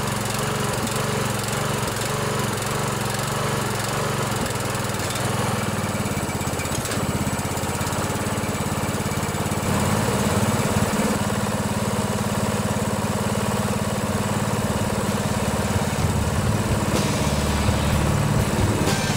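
A 16 hp Briggs and Stratton single-cylinder overhead-valve Intek engine on a riding lawnmower running steadily, its valves freshly adjusted to cure hard starting. Its note shifts about ten seconds in.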